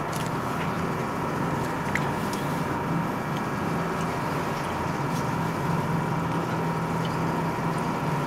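Steady machinery hum with a constant higher whine, unchanging in level throughout.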